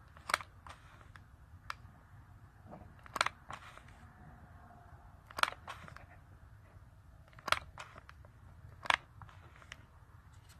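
Irregular sharp clicks and light knocks of hard objects being handled, five louder ones spread a second or two apart with fainter ticks between, over a low steady hum.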